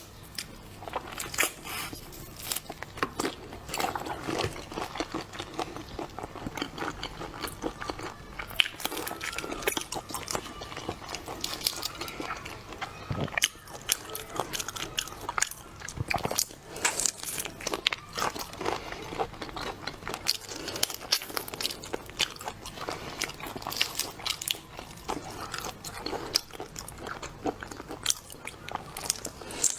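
Close-miked eating of shrimp: continual biting and chewing, with crunching and many small wet, crackling clicks at an uneven pace.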